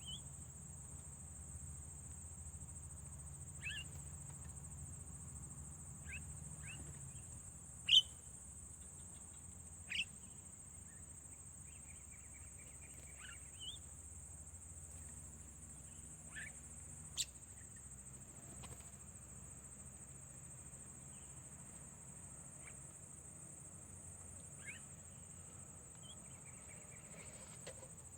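Steady high insect drone, with a dozen or so short, sharp bird chirps scattered through it, the loudest about 8 and 17 seconds in.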